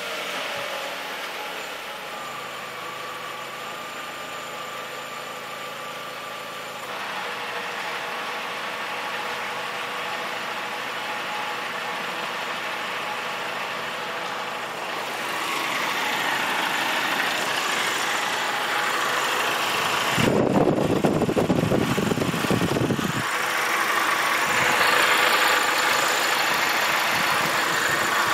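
Volkswagen GTI's 1.8-litre turbocharged four-cylinder engine idling just after starting, growing louder and harsher partway through. The owner puts the extra noise down to the air conditioning being switched on. About two-thirds of the way in, a loud rushing noise lasts some three seconds.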